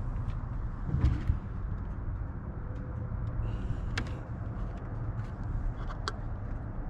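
A vehicle engine running steadily with a low hum. A few sharp clicks or knocks come about one second, four seconds and six seconds in.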